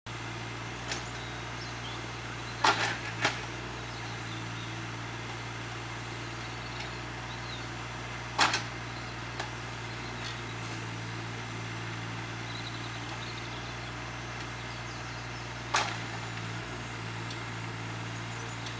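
JCB 8014 mini-excavator's diesel engine running steadily while it digs a trench in hard, compacted ground. A few sharp clunks from the bucket and digging arm: two close together about three seconds in, one at about eight seconds, and one near the end.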